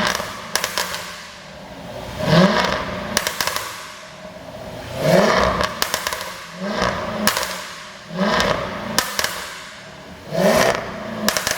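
2019 Jaguar F-Type SVR's supercharged 5.0-litre V8 blipped about five times, the revs rising sharply and falling back each time, with a burst of exhaust pops and crackles on each lift-off from an overrun 'pop' tune.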